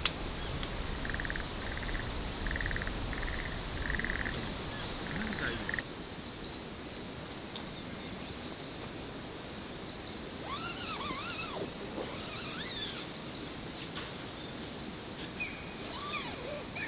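Pond-side outdoor ambience: a frog gives a run of short pulsed calls about every 0.7 s for the first few seconds over a low rumble. After that, birds sing with whistled notes that rise and fall.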